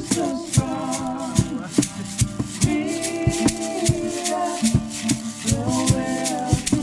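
Music: a voice singing a melody over a backing track with a steady beat of crisp shaker-like percussion hits, about two or three a second.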